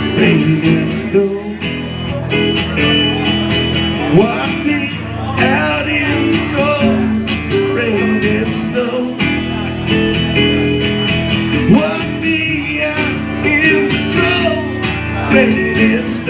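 Acoustic guitar music played live: steady strummed chords under a melodic line that bends in pitch, with some singing.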